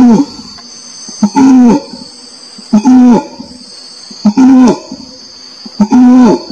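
Orangutan calls repeating about every second and a half, five times. Each is a short sharp note followed by a brief low hooting call that drops in pitch at its end. A steady high insect drone runs behind them.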